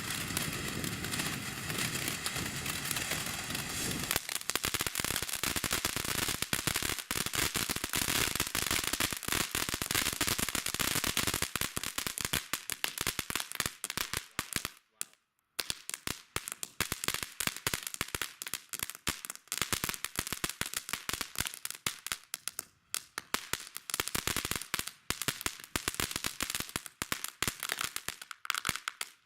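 TNT Color Blast consumer firework going off. A steady hiss for the first few seconds, then a dense run of rapid crackling pops. The pops almost stop for a moment about halfway, then go on more sparsely.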